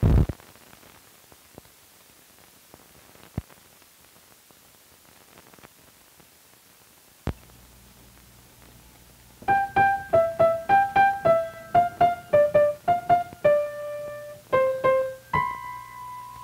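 A piano played one note at a time, a short halting melody of about twenty notes that ends on a held higher note. It starts about halfway in; before it there is faint hiss with a few clicks and a sharp pop, then a low hum.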